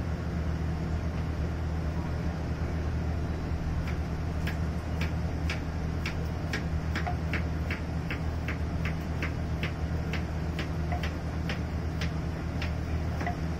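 A steady low mechanical hum, with a run of sharp, evenly spaced clicks, about two or three a second, from about four seconds in until near the end.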